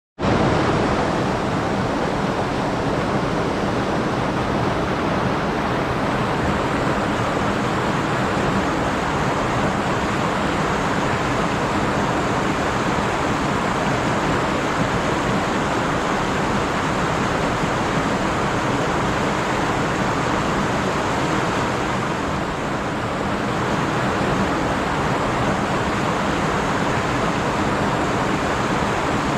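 Stream water rushing and splashing over rocks, a steady dense hiss that dips slightly about three quarters of the way through.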